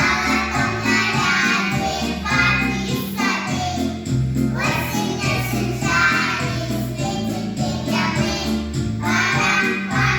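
Children's vocal group singing together over a backing track with a steady bass line.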